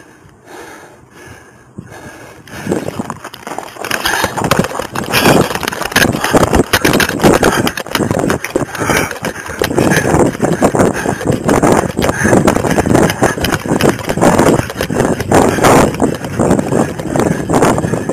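Footfalls and gear jostling against a police officer's body-worn camera as he moves on foot: a quick, uneven run of knocks and rubs. It is muffled and quieter for about the first two seconds, then loud and continuous.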